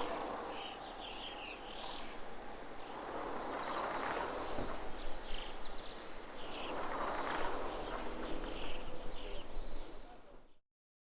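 Birds chirping over a wash of outdoor ambient noise that swells and fades twice, then cuts off about ten and a half seconds in.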